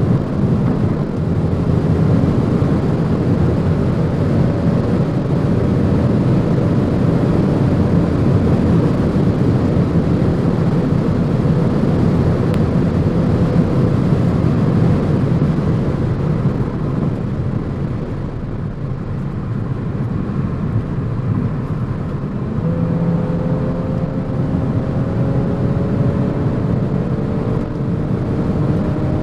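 Audi S5 Sportback driving at high speed: steady engine hum under heavy road and wind noise. The level eases slightly around the middle, then from about two-thirds in the engine note slowly rises as the car accelerates in a high gear.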